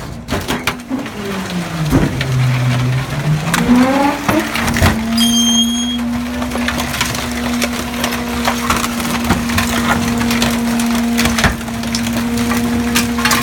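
Rear-loading garbage truck's packer blade crushing wooden boards in the hopper: repeated cracks and snaps of splintering wood over a steady hydraulic hum. The hum drops in pitch and climbs back up about two to four seconds in.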